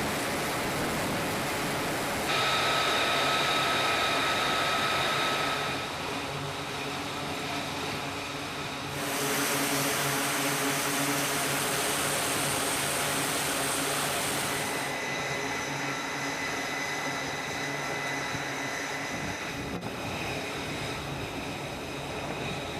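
Jet engines running: a steady rushing noise with high whining tones. The sound changes abruptly about 2, 6, 9 and 15 seconds in, as in cuts between separate clips.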